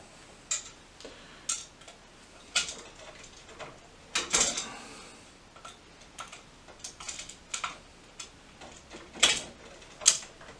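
Irregular small metal clicks and a brief scrape of a small flat-blade screwdriver working at a wall switch's push-in wire terminal, trying to release a stuck wire.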